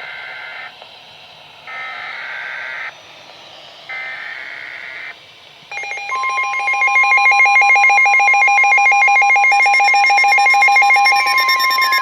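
Emergency Alert System SAME header: three bursts of warbling digital data tones, each about a second long with a second's pause between them. About six seconds in, a loud EAS attention tone starts: steady tones with a rapid pulse, joined by higher tones and falling sweeps near the end, announcing a Special Marine Warning.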